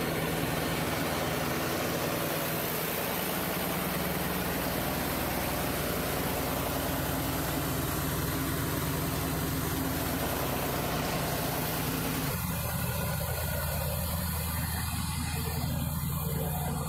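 Steady drone of running diesel machinery in a ship's engine room: a low hum under a broad rushing noise. About twelve seconds in, the higher part of the noise drops away abruptly, leaving mostly the low hum.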